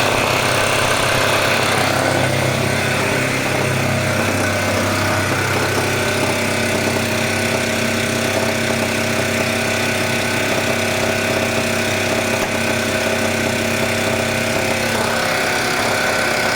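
Diesel generator engine running steadily, its low tone easing slightly about four seconds in.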